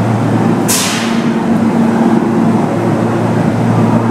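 A JR West 521 series electric train standing at the platform, its equipment giving a steady low hum. Just under a second in comes one short, sharp hiss of released air.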